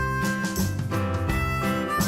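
Background music: a bright, upbeat tune with a melody that sounds like harmonica over a steady bass beat.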